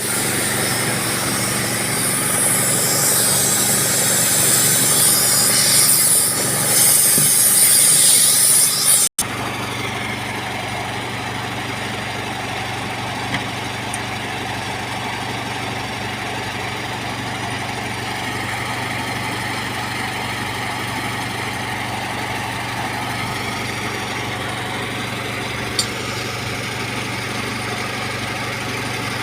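Loud rushing hiss with rubbing noise for about nine seconds, cut off abruptly. Then a steady low mechanical hum with a constant pitch, like a motor running at idle, with two faint clicks.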